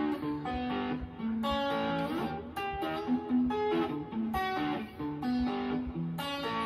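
Solo electric guitar playing a short phrase of picked notes and chords, each ringing briefly before the next.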